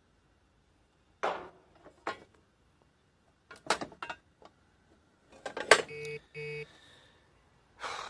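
Sharp plastic clacks as an HVAC pull-out electrical disconnect is pulled and handled, the power being cut for safety. Two short electronic beeps about half a second apart come about six seconds in.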